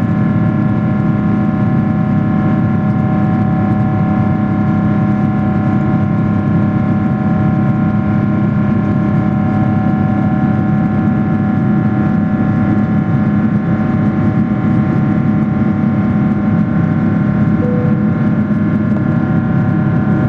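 Steady jet engine and airflow noise inside the cabin of a Boeing 777-300ER powered by GE90-115B turbofans: a constant low hum with several steady higher tones over it.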